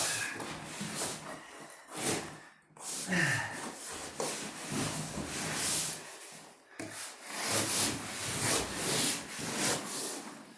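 Foam carpet pad being sliced with a utility knife and pulled about: a rough, irregular scraping and rustling, broken by two short pauses.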